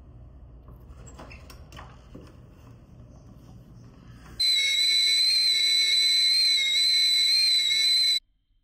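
A few clicks from a door's deadbolt and handle over a low rumble. About four seconds in, a stovetop kettle's whistle starts at the boil: a loud, steady, high whistle held for nearly four seconds that cuts off suddenly.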